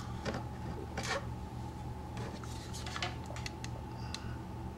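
Light, scattered clicks and clinks of small tools and materials being handled at a fly-tying vise as a hot glue gun is brought up to the fly, over a steady low hum.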